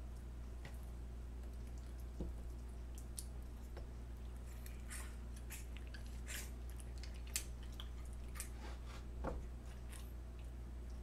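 Raw bone-in chicken pieces being squished and pressed by hand into a glass canning jar: soft wet squelches and small clicks at irregular moments, busiest in the middle, over a steady low hum.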